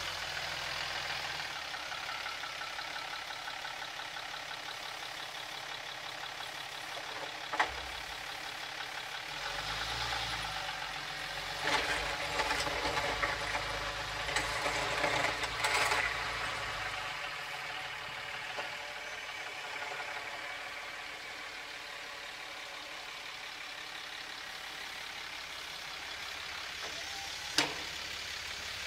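Dodge Ram diesel pickup engine running steadily with a knocking diesel clatter. It gets louder for several seconds in the middle, and there is a sharp click about eight seconds in and another near the end.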